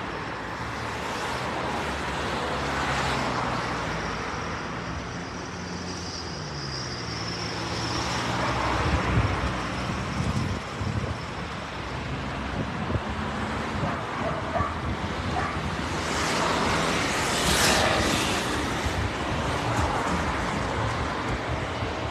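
Street traffic noise: a car engine running close by, its pitch shifting now and then, over the steady hum of road traffic.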